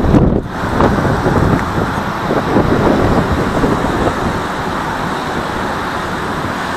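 Wind buffeting the microphone over a steady wash of road traffic noise. The buffeting is strongest in the first couple of seconds, then the sound settles to an even rush.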